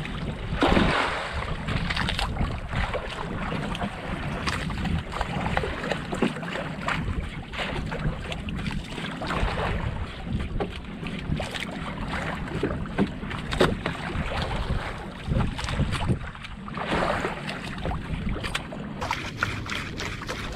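Wind buffeting the microphone over sea water lapping against a small outrigger fishing boat, with scattered light clicks and knocks.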